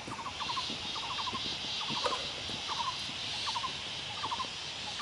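An animal calling: short, rapid rattling calls, each a quick run of four or five notes, repeated about every half second over a steady high hiss.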